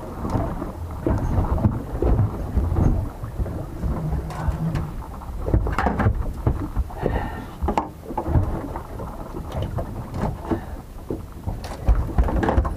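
Wind buffeting the microphone with a low rumble, over scattered knocks and thuds as a landing net with a pink snapper is swung aboard and set down on the boat's deck.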